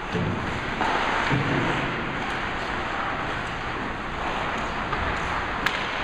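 Ice hockey game on an indoor rink: a steady noisy wash of play, with one sharp knock near the end.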